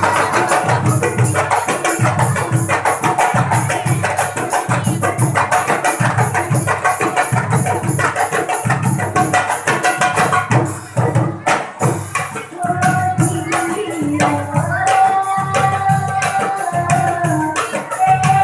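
Marawis ensemble playing: small marawis hand drums and frame drums beaten in a fast, busy rhythm over regular deep strokes of the large hajir barrel drum. A voice sings over the drumming, clearer from about twelve seconds in.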